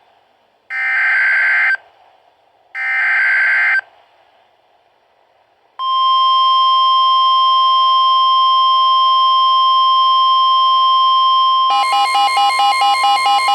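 Emergency Alert System tones between two broadcast warnings. First come two harsh, buzzy digital header bursts of about a second each, a second apart. Then a long steady alert tone starts about six seconds in, and near the end a fast pulsing alarm tone joins it.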